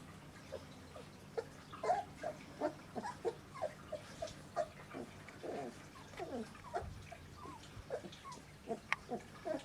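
A litter of 26-day-old Kleine Münsterländer puppies making many short squeaks and whines, several a second, each call a quick falling squeal.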